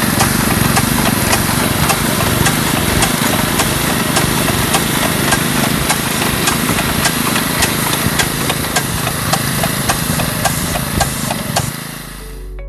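Small engine of a road-line marking machine running steadily, with a regular ticking about three times a second; it dies away near the end.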